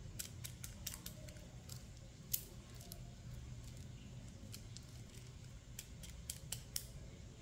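Pink plastic pearl beads of a toy bracelet clicking against each other as it is handled. The clicks are small and scattered, with one louder click a little over two seconds in and a quick run of clicks near the end.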